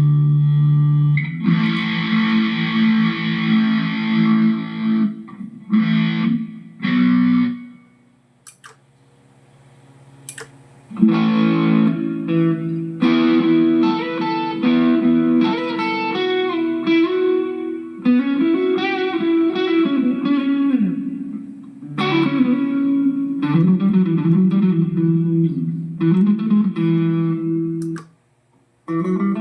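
Electric guitar played through a Mooer GE150 Pro LI multi-effects amp modeller. A few ringing chords give way to a pause of about three seconds, then a single-note lead line with string bends and vibrato.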